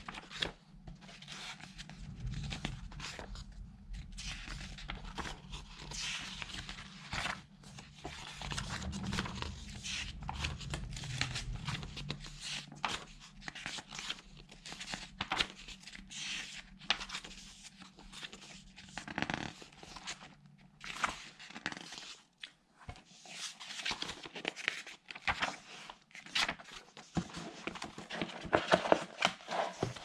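Pages of a paperback book being turned by hand one after another, the paper rustling and flicking with each turn.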